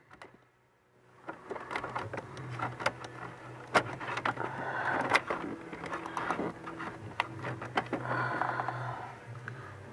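Wiring harness and plastic dash parts rustling and clicking as hands push the wires up behind the dash, with several sharp clicks, over a steady low hum.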